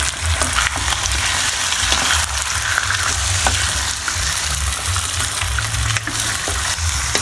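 Whole squid frying in a hot wok with garlic and onion, a steady sizzle, with scattered clicks and scrapes of a spatula stirring the pan.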